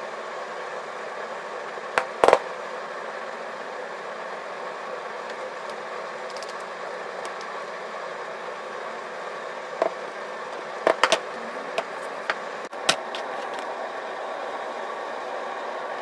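A steady machine hum in the background, with a few sharp knocks and clatters as wooden blocks and a glue bottle are handled on the workbench: a double knock about two seconds in, and a short cluster of knocks near the end.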